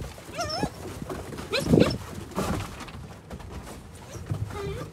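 Gerberian Shepsky (German shepherd–husky mix) puppies whining and yipping as they play, with three short high-pitched calls, the loudest a little under two seconds in.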